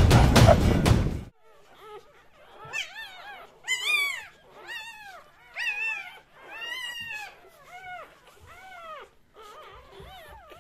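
Intro music cuts off about a second in. Then newborn American Staffordshire Terrier puppies squeal and whimper: a string of short, high cries, each rising and falling in pitch.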